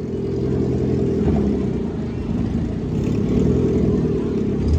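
Demolition derby cars' engines running loud together, revving, the sound concentrated low.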